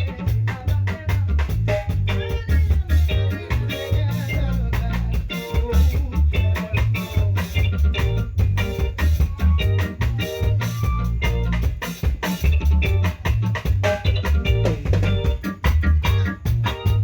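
Live band music with a heavy bass line and drum kit keeping a steady beat, guitar or keyboard lines and some singing over it, in a reggae/ska style.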